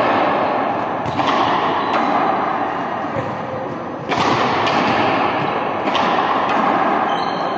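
Several ball thuds in a reverberant sports hall over a steady background din.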